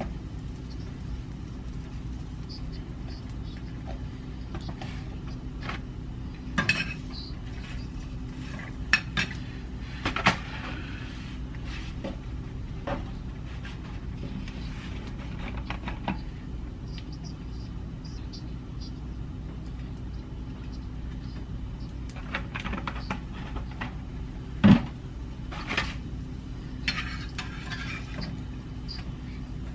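Clinks and knocks of kitchen utensils and containers being handled at the stove, scattered irregularly over a steady low hum; the sharpest knock comes about five seconds before the end.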